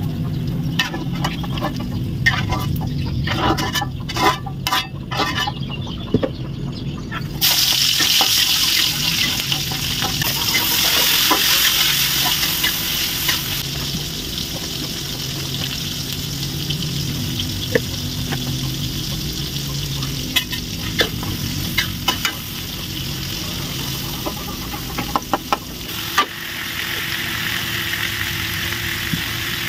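Metal spatula scraping and clinking in a wok, then about seven seconds in a loud sizzle starts suddenly as chopped tomato and shallot go into the hot oil. The sizzle carries on under stirring and scraping, eases off, and swells again near the end.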